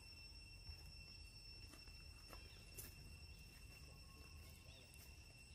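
Near silence: faint outdoor background with a steady high-pitched whine, a low rumble and a few faint ticks.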